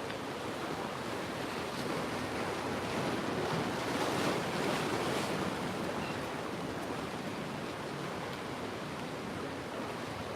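Sea waves washing in a steady rush, with wind buffeting the microphone; the wash swells a little about four seconds in.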